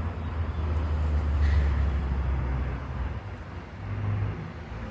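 Low rumble that swells over the first three seconds and fades, then rises again briefly about four seconds in.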